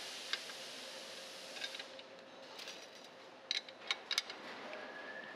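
Combination wrench clinking and clicking on the nuts of a street sweeper's pickup broom bearing and hub assembly as they are tightened, with a quick run of sharp metallic clicks about three and a half to four seconds in. A soft hiss fills the first two seconds.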